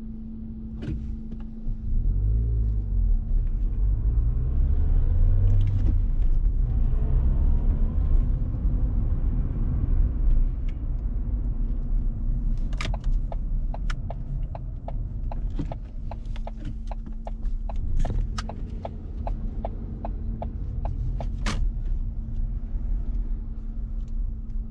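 Car engine and road rumble inside the cabin. It gets louder about two seconds in and rises in pitch as the car speeds up, then settles to a steady run. From about halfway through, a steady ticking of roughly two clicks a second runs for several seconds.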